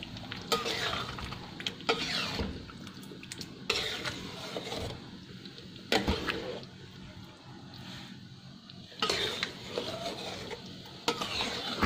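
A spoon stirring thick rendang in a metal wok, scraping through the sauce and knocking against the pan now and then.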